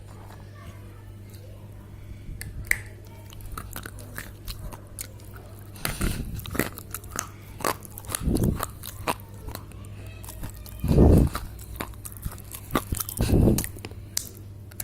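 Dry clay crunching and crackling: many small sharp crackles, with four louder crunches about six, eight, eleven and thirteen seconds in, the one near eleven seconds the loudest. A steady low hum runs underneath.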